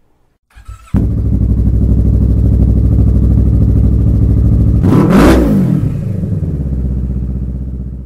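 Motorcycle engine coming in abruptly about a second in and running steadily, with one quick rev (pitch rising then falling) about five seconds in, then fading out near the end.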